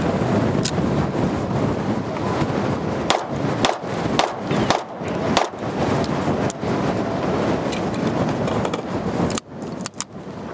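A compensated 9mm pistol firing a quick string of about five 147-grain rounds, roughly half a second apart, through heavy wind noise on the microphone.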